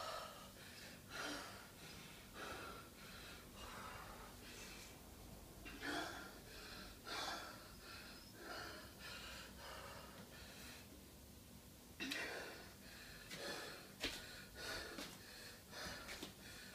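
A woman breathing hard and out of breath from exercise, about one heavy breath a second, easing briefly a little past the middle.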